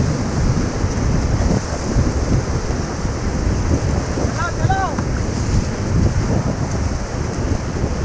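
Rushing water of the Ganges, heard from a raft, with heavy wind buffeting the microphone. A short voice call cuts through about halfway.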